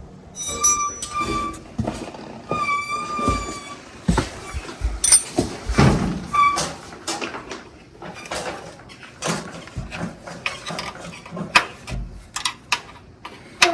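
Metal clicks and knocks of hand tools and brake-line fittings being worked, with two high, steady squeaks of about a second each in the first few seconds.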